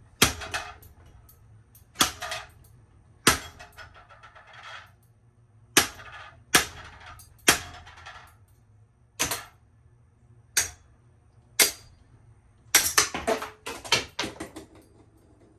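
A ceiling fan being smashed: about a dozen sharp, heavy blows a second or two apart, several followed by rattling and clattering, with a quick flurry of hits near the end.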